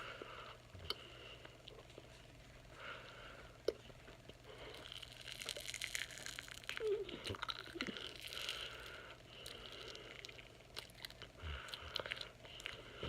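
Wet mouth noises: soft squishing, smacking and clicks of marshmallows being stuffed into the mouth and chewed, busiest in the middle of the stretch.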